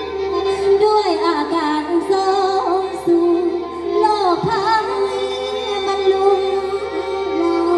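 Mor lam singing: a voice sliding through ornamented melodic lines over a steady droning accompaniment.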